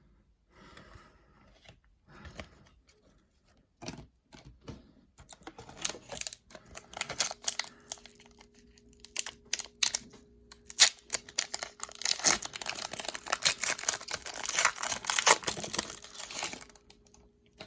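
Plastic wrapper of a hockey card pack crinkling and tearing as the pack is ripped open. A few faint clicks come first, then the crackling builds and is loudest for the last few seconds before stopping suddenly.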